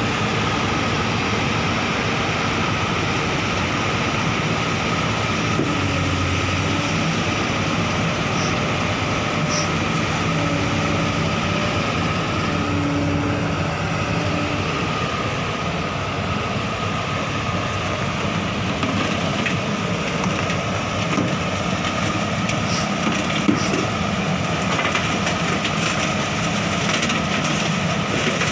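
LiuGong 920E crawler excavator running steadily under load as it travels, with a constant high whine over the engine and occasional clanks from its steel tracks.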